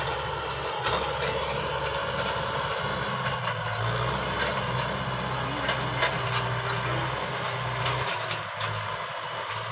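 Kubota M6040 tractor's four-cylinder diesel engine running steadily under load while pulling a disc harrow through dry ploughed soil. A few sharp clicks are scattered through the steady engine sound.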